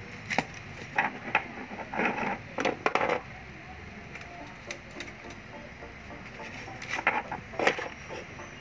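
Irregular clicks and light knocks of handling a disassembled hot air gun: its plastic housing, switch and heating-element wiring being moved and fitted by hand. A cluster of clicks in the first three seconds, then a couple more near the end.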